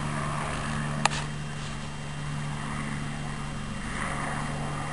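Steady low mechanical hum over a background hiss, unbroken throughout, with a single sharp click about a second in.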